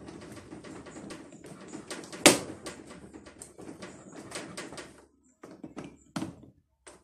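Pliers clicking and scraping on a washing machine's metal springs as they are unhooked, a dense rattle of small metallic clicks with one sharp clank a little over two seconds in, then scattered separate clicks.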